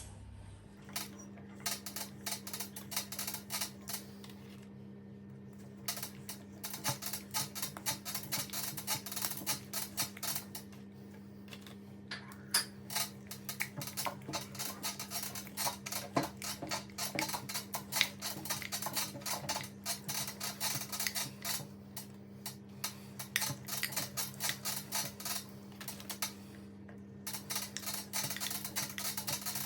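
Meat grinder motor switching on about a second in and running with a steady hum, over dense rapid clicking and crackling as it crushes tooth-shaped candy, with a few brief lulls in the crackling.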